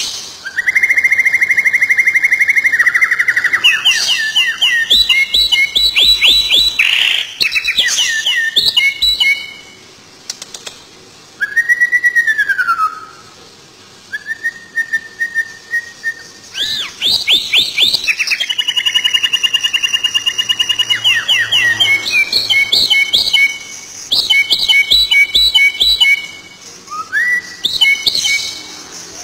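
A small songbird singing a long, varied song of fast trills, rolls and clear held whistles, with a few short pauses.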